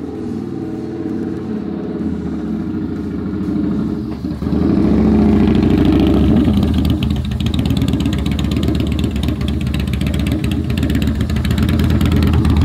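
Yamaha Bolt's air-cooled V-twin running through a Vance & Hines Twin Slash exhaust fitted with Competition baffles, getting louder about four seconds in and holding a steady, throaty note. The newly installed baffles make it sound cleaner and smoother.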